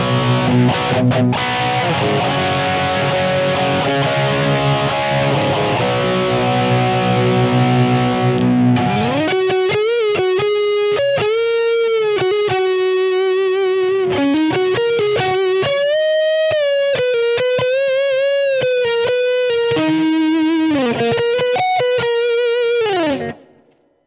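Distorted electric guitar played through a Boss ME-80 multi-effects unit on a hair-rock patch: thick sustained chords for about the first nine seconds, then a single-note lead line with vibrato and string bends. The lead ends with a slide down and stops about a second before the end.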